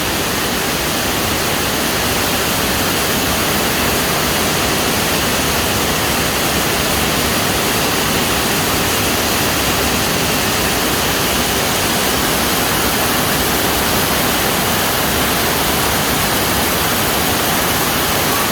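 Steady loud hiss of storm wind and heavy rain.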